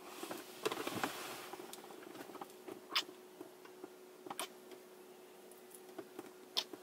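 Kisses on the cheek: a few soft, short lip smacks with some rustling of clothing, over a faint steady hum.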